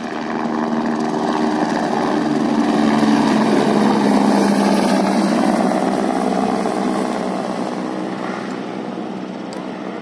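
Helicopter flying past, growing louder to a peak about four seconds in and then fading as it moves away.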